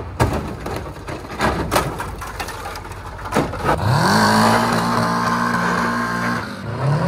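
Honda B18B1 four-cylinder engine of a mid-engine swapped Civic: a few sharp pops and knocks, then about four seconds in it revs up quickly and holds high revs for a couple of seconds, drops off, and revs up again near the end.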